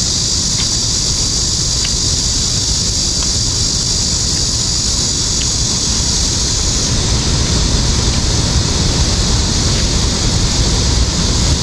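Wind buffeting the microphone outdoors, with a steady high hiss that stops a little past halfway and a few faint light ticks.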